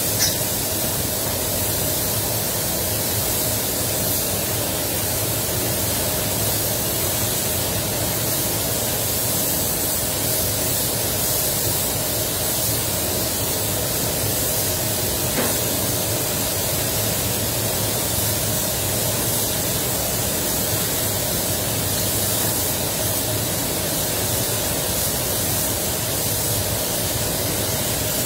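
Compressed-air paint spray gun hissing steadily as it sprays wetbed onto a car bumper, set to about 1.8 bar with the fluid fully open. The spray booth's fans drone steadily underneath.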